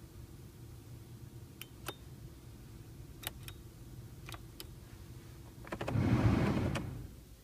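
Clicks of the manual climate-control knobs in a 2011 Toyota Aygo over a steady low hum, then a loud rush of air from the ventilation blower that swells about six seconds in and fades away just before the end, as the fan is turned up and back down.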